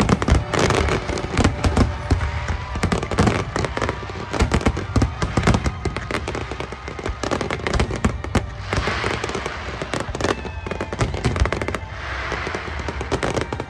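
Fireworks display: many aerial shells bursting in rapid, irregular bangs. Twice in the second half a crackling hiss swells up among the bangs.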